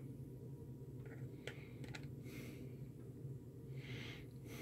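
A few faint clicks and soft rubbing of clear acrylic enclosure pieces and a circuit board being handled and pressed together, over a steady low hum.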